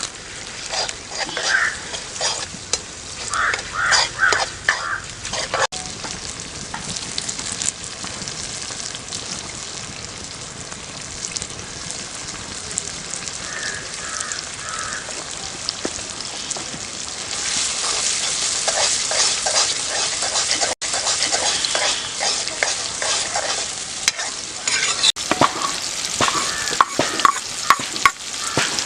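Food sizzling as it fries in a pan, with a spoon repeatedly stirring and scraping against the pan. The sizzle grows louder about two-thirds of the way through.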